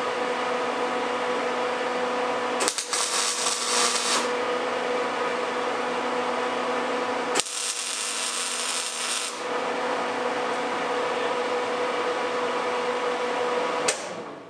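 Electric arc welding tack-welding a new steel hull plate onto a steel boat hull: two crackling stretches of about one and a half and two seconds. A steady machine hum runs beneath them and cuts off near the end.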